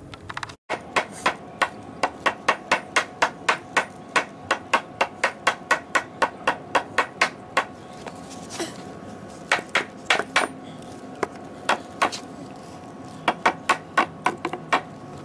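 Hammer striking the wooden table frame in fast, even runs of blows, about four a second, with a short pause about eight seconds in before shorter runs.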